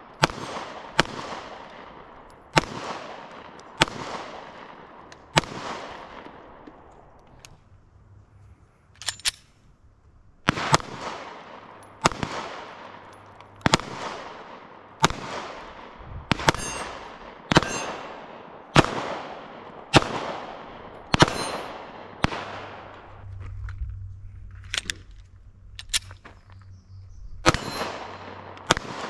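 Glock 43X MOS 9mm pistol fired in slow single shots, about one every second and a half, each sharp crack trailing off in a long echo. The firing breaks off twice for a few seconds.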